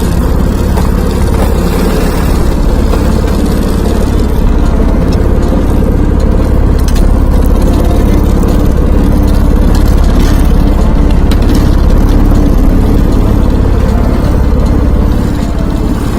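A small engine running steadily and loudly at an even speed.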